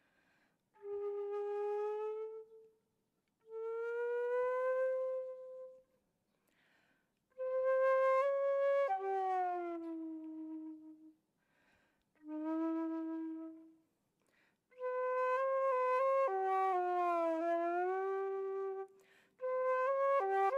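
Solo concert flute playing slow, long held notes in short phrases separated by brief pauses. Several notes bend or slide in pitch, and the phrases grow longer and busier towards the end.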